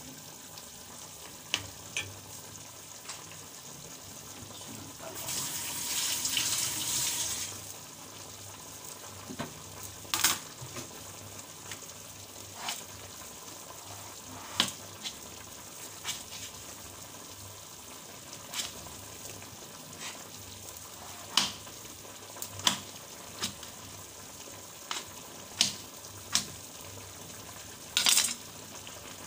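Milkfish simmering in vinegar and cooking oil in a frying pan over a gas flame: a steady sizzling hiss with scattered sharp pops and crackles. A louder spell of hissing comes about five seconds in and lasts a couple of seconds, and there is a loud crackle near the end.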